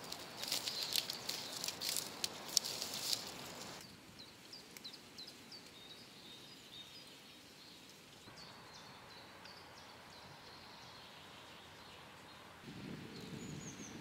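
Footsteps crunching through dry grass and leaf litter for the first few seconds, then small birds chirping with short high calls for the rest.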